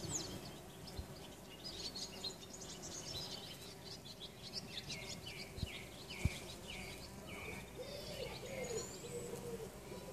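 Bumblebees buzzing in a flowering shrub as a low steady hum, under songbirds chirping and twittering, with a run of quick falling notes in the middle. Low cooing calls come in near the end.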